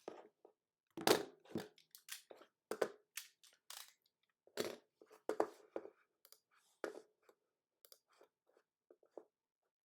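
Plastic wrap and foil packaging of a box of trading cards crinkling and tearing as it is opened by hand, a run of short irregular crackles and rips that grow fainter near the end.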